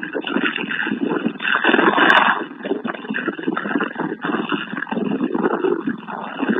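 Bell Boeing V-22 Osprey's twin turboshaft engines and proprotors running as the tiltrotor taxis, a fluctuating noisy roar. A short click comes about two seconds in.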